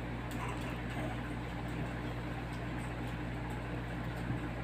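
Steady hum and hiss of a standing electric fan running, with a few faint clicks.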